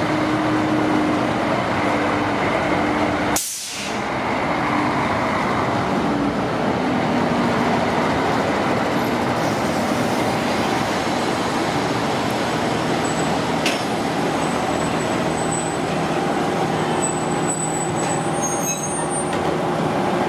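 Steady running noise of a moving vehicle, with a brief dip about three and a half seconds in, a sharp click near 14 seconds and faint high squeals near the end.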